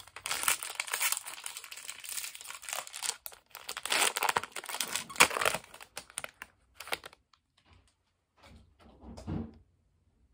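Foil wrapper of a Topps baseball card pack being torn open and crinkled by hand, a dense crackling that stops about seven seconds in.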